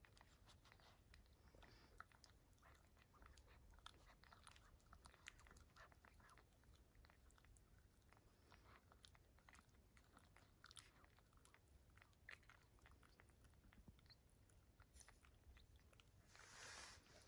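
Faint wet clicking and smacking of newborn puppies suckling at their mother's teats, many small irregular clicks, with a brief soft hiss near the end.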